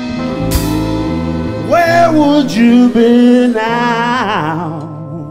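Live rock band music: a male singer holds and bends long notes with a wavering vibrato over sustained bass and chords, with little percussion, fading near the end.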